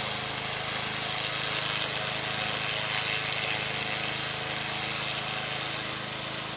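Remote-controlled tracked lawnmower's engine running steadily, with a constant hum under a broad whirring noise.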